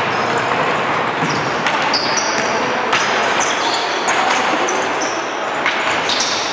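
Basketball being dribbled on a hardwood gym floor, with repeated knocks of the ball and short high squeaks of sneakers, over a steady murmur of voices echoing in a large hall.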